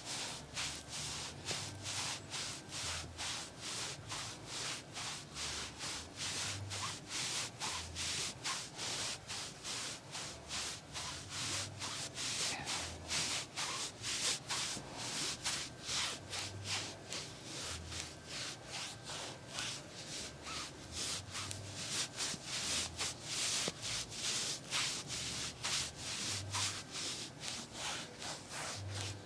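Brisk rubbing massage strokes, hands working quickly over skin or clothing in an even rhythm of about three to four strokes a second.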